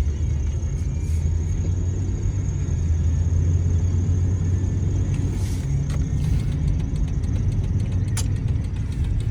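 A car being driven, heard from inside: a steady low engine and road rumble, with a single sharp click about eight seconds in.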